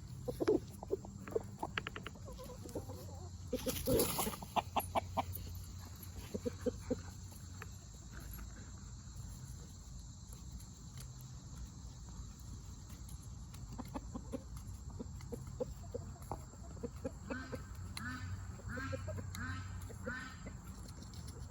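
Backyard chickens clucking softly while feeding, with many short taps. A brief loud noisy burst comes about four seconds in, and a run of quick repeated calls comes near the end.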